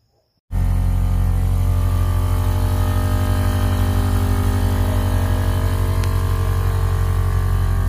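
Air-suspension air compressor running steadily, a loud buzzing drone with a fast even pulse, starting abruptly about half a second in.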